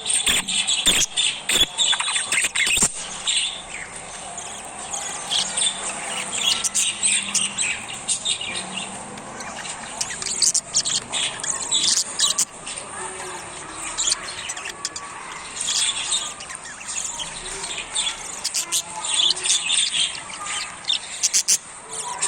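Parrots chirping and squawking in short, scattered calls. A run of sharp clicks and scratches comes in the first few seconds.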